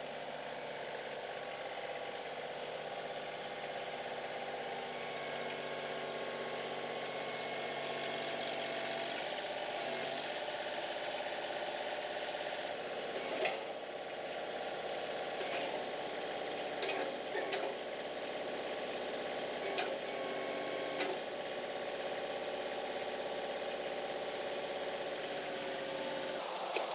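A portable band sawmill's engine running steadily, with a few light knocks and clicks partway through.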